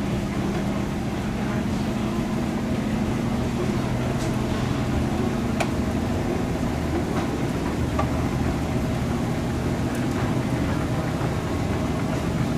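Hitachi escalator running while being ridden upward: a steady mechanical drone with a low hum and a few faint clicks.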